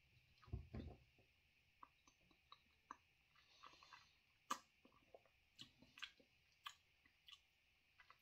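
Faint, irregular wet mouth clicks and lip smacks of a man tasting a spoonful of hot sauce, with a soft low thump just under a second in, over quiet room hiss.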